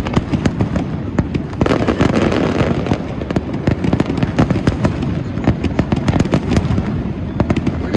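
Aerial fireworks shells bursting in a dense, continuous barrage: many sharp bangs a second mixed with crackling, with no pause.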